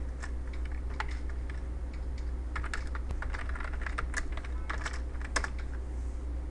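Typing on a computer keyboard: irregular runs of quick keystroke clicks with short pauses between them, over a steady low hum.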